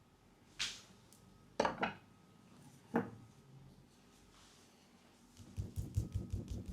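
Leg massage sounds: four separate sharp slaps or taps in the first few seconds, then a rapid run of soft low thumps near the end, as the hands or massage tool pat quickly on the leg.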